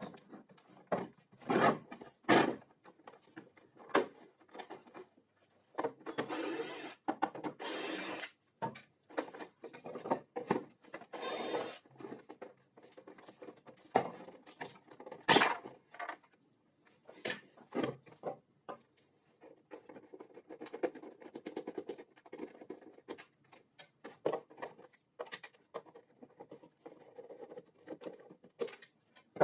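Hand-work handling noises: irregular knocks and clicks, with a few longer scrapes and rubs, the sharpest click about halfway through.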